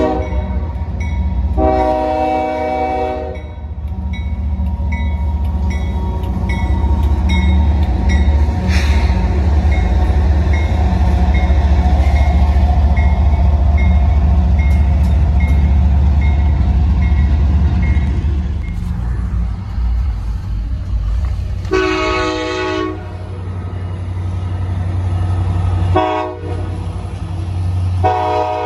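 Union Pacific diesel freight locomotive passing close with a deep engine rumble, its air horn sounding a long blast about two seconds in while a grade-crossing bell dings about twice a second. Later a Norfolk Southern train's horn sounds a long blast, a brief toot and another long blast near the end.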